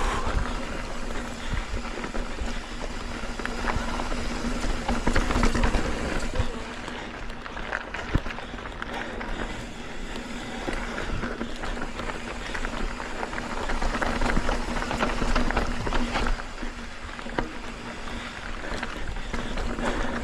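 Wind rushing over the microphone and a mountain bike running down a dirt trail, with tyre noise and frequent small rattles and knocks from the bike.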